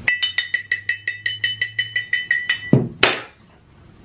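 A drinking glass struck rapidly with a utensil, about seven ringing clinks a second for nearly three seconds, then one sharp sound about three seconds in.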